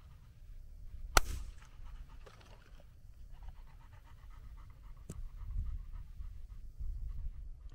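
A single loud gunshot about a second in, a shot fired to simulate a hunt during gundog retrieve training, with a fainter sharp crack about four seconds later. A dog pants softly throughout, over a low rumble of wind on the microphone.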